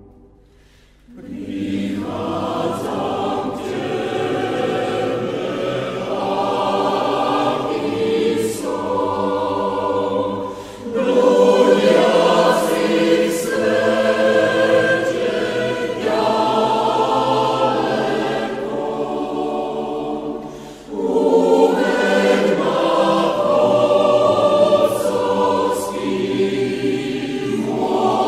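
Church choir singing a hymn in Slovak. It comes in about a second in, after a brief pause between verses, and dips briefly twice between phrases.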